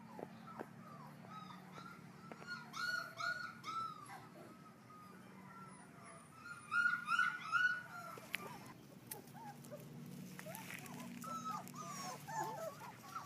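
Four-week-old chocolate Labrador puppies whimpering and yipping: short, high, arching whines in clusters, the loudest run about seven seconds in, with a string of smaller whines near the end.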